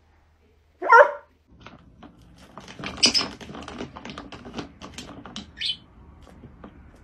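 A dog gives a single bark about a second in. Then comes a run of light plastic clicks and taps from a swing-top plastic bin lid as a small parrot climbs on it and pushes it, with a short high chirp near the end.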